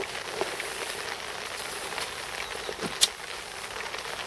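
Steady hiss of rain falling, with scattered small drop ticks and one sharp click about three seconds in.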